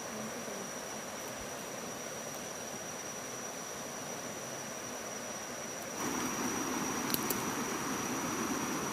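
Steady rush of water from a small rocky river cascade, with a thin, steady high-pitched whine above it; the rushing grows louder about six seconds in, followed by a couple of faint clicks.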